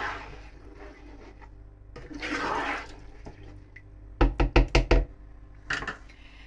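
Black slotted spatula stirring rice through watery chicken in a nonstick wok, giving soft swishes, then tapped sharply on the pan about five times in quick succession, with one more click shortly after.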